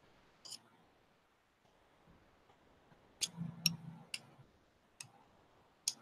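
Faint, scattered clicks and taps, about six in all, from a metal belt buckle packed with damp sawdust clay being handled and knocked against the work surface while the filling is smoothed. A short low hum comes about three and a half seconds in.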